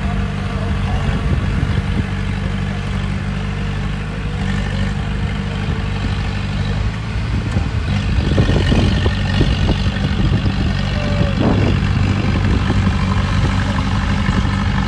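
Heavy diesel engine of earthmoving machinery running steadily, with irregular knocks and clatter from about eight seconds in.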